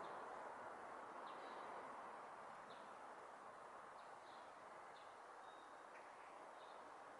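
Faint outdoor ambience: a steady background hush with short, high chirps from small birds about once a second.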